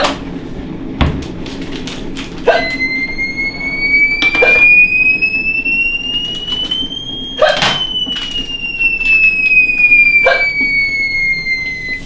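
A woman hiccuping sharply every two to three seconds, the persistent hiccups of her chronic condition. A few seconds in, a high tone starts; it slides slowly upward for about five seconds, then slowly back down.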